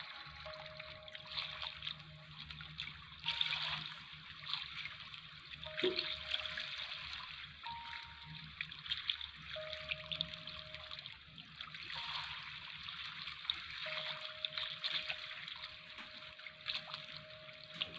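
Shower water running and splashing steadily, with small irregular spatters.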